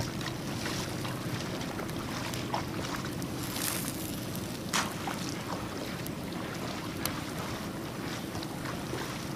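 Steady low drone of an engine, with light crackles and a few sharp clicks from a wood campfire.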